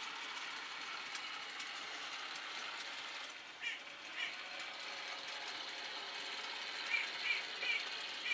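Model diesel locomotive hauling wagons through a layout's yard: a steady thin whirring hiss from the running train, with short high chirps twice around the middle and several more near the end.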